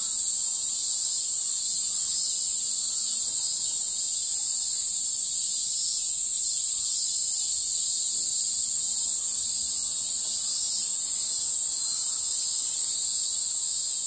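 A steady, high-pitched chorus of singing insects, unbroken throughout, with a fainter lower-pitched layer beneath it.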